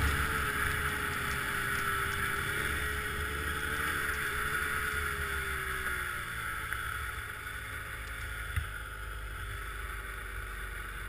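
Snowmobile engine running as the sled rides over snow, its note slowly falling in pitch and fading about six seconds in as the sled slows. A steady rush of wind and track noise lies under it.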